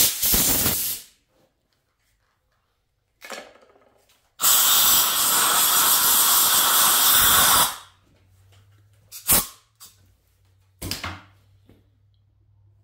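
Compressed-air blow gun blasting chips out of a freshly tapped head-bolt hole in the aluminum block: a hissing blast at the start, a brief puff about three seconds in, a steady blast of about three seconds, then two short puffs near the end.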